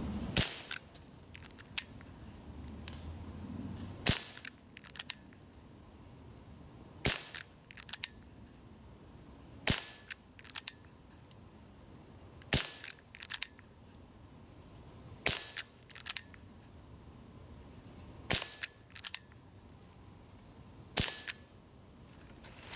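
Gamo PR-776 CO2 pellet revolver firing eight shots, about one every three seconds, each short and sharp. Faint pairs of clicks follow each shot.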